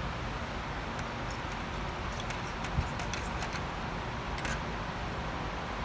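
Faint light ticks and clicks of measuring and marking tools on a small piece of sheet metal, with a single soft knock about three seconds in, over a steady background hiss and hum.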